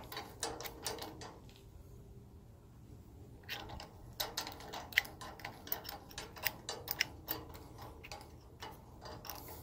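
Ratchet of a GearWrench ratcheting die handle clicking as the die is turned on a 1/4-20 steel bolt: a run of faint, irregular clicks that stops for about two seconds after the first second and a half, then resumes more densely.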